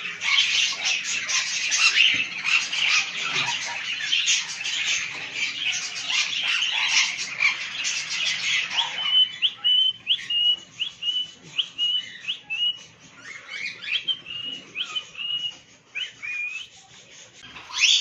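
Many parrots chattering and chirping together in a dense, high-pitched din. After about nine seconds it thins out to a run of short chirps that rise in pitch, roughly two a second.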